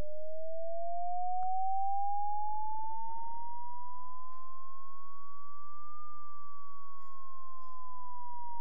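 A pure sine tone from a Max/MSP cycle~ oscillator, its pitch swept by a counter. It glides slowly upward, turns about six seconds in, and starts to fall again, like a slow siren.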